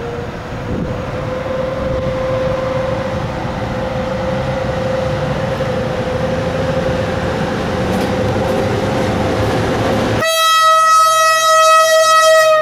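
EP09 electric locomotive drawing closer with a steady whine and a rumble that grows louder. About ten seconds in it sounds one long, loud horn blast, the Rp1 'attention' signal.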